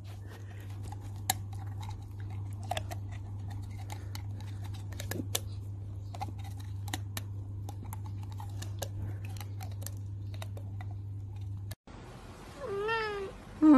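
Faint, irregular small clicks and ticks over a low steady hum. About a second before the end, a cat meows, then starts a second, louder meow.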